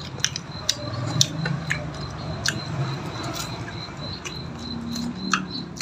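People eating pork ribs by hand, chewing and smacking their lips, with scattered sharp clicks and smacks over a steady high-pitched tone.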